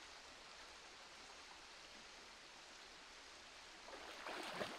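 Shallow stream water running, a steady faint rush; about four seconds in, a short burst of splashing as hands pull a crab up out of the water.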